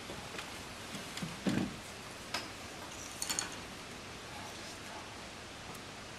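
Scattered small handling knocks and clicks at a potter's wheel: a dull knock about a second and a half in, a sharp click soon after, and a quick cluster of clicks with a brief high metallic ring about three seconds in, over a steady low background hiss.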